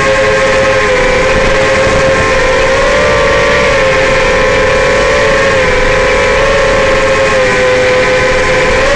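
Brushless motors and three-blade 5-inch props of a Realacc X210 FPV racing quad (Racerstar BR2205 2600KV motors) whining steadily in flight over a rushing noise. Several close tones rise and fall slightly with throttle changes.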